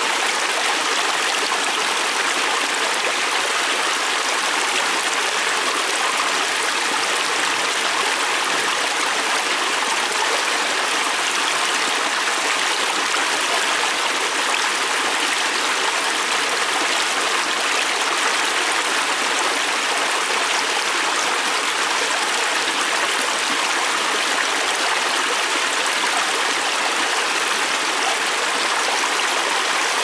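Shallow river water rushing and splashing over rocks and small cascades, a steady, unchanging rush.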